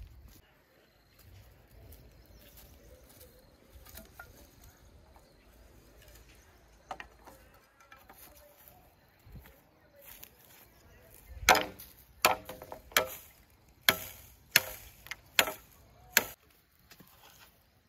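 A series of seven sharp chopping strikes on wood, about one every three-quarters of a second, starting a little past halfway through. Before them there is only a faint high insect buzz.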